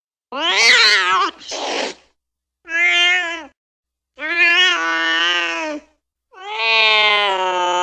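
Angry cat yowling four times, drawn-out wavering cries separated by short pauses. A brief raspy noise follows the first yowl. The last yowl starts near the end and is held long.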